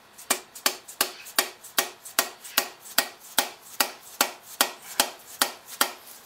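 Plastic-faced mallet hammering on an alternator's rotor shaft and front casing: about fifteen even, sharp knocks, roughly two and a half a second, trying to drive the shaft out of its tight press-fit bearing, which does not give.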